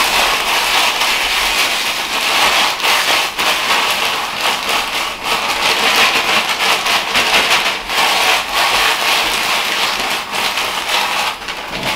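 Potato chips being crushed by hand inside a plastic zip-top bag, ground toward a powder: dense, continuous crackling and crunching with the crinkle of the plastic.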